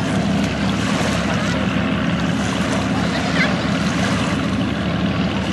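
The Thunderbird's twin Allison V12 aircraft engines running at low speed, a steady low, pulsing exhaust note, with water washing along the hull.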